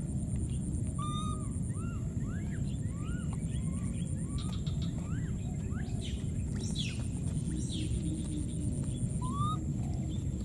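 Baby macaques squeaking: many short, high, arching chirps come one after another, with a few louder falling squeals about two-thirds of the way in, over a steady low rumble of background noise.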